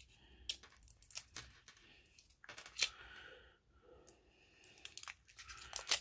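Close handling of a roll of washi tape: a string of small clicks and short scratchy peeling and tearing sounds.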